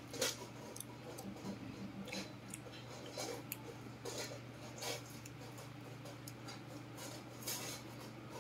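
Longan shells being cracked and peeled by hand: a scatter of small, irregular crackles and clicks, over a steady low hum.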